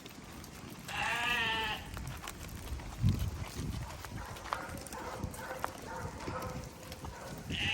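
Sheep bleating: one long wavering bleat about a second in and another starting near the end, with a sharp thump and some rustling between them.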